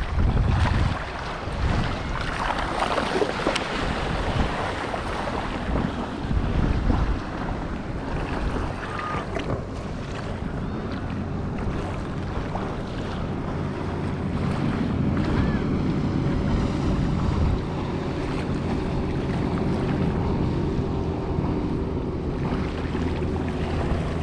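Wind buffeting the microphone over the wash of small waves, with a motorboat's engine hum coming in steadily about halfway through.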